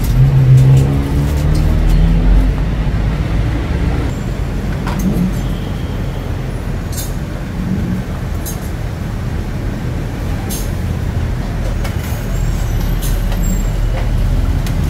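Street traffic running close by: a bus engine is loud for the first couple of seconds, then a steady traffic rumble follows. A few sharp metallic clinks of utensils at the stall come through it.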